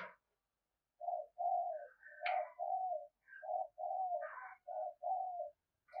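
Spotted dove cooing: a run of short, low coos, two or three a second, starting about a second in.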